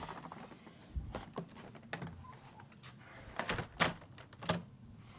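Irregular knocks and clunks, about half a dozen spread through a few seconds, of gear and tools being handled and set down.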